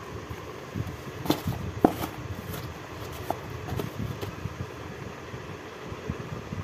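Mangoes being handled and packed into a box: a handful of short knocks and thuds, the sharpest in the first two seconds, over a steady low mechanical hum.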